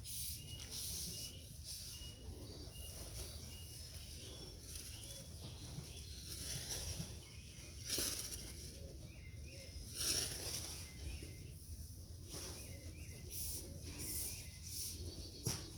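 Morning outdoor ambience: a small bird repeats a short high chirp about twice a second over a steady low rumble, broken by a few brief louder rustles about halfway, about two-thirds in and just before the end.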